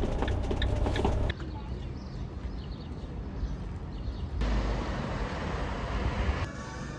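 Low rumble of a camper van driving, heard from inside the cab, cut off abruptly about a second in. Then come short, quieter clips of background ambience with faint voices and another stretch of low rumble, each starting and stopping suddenly.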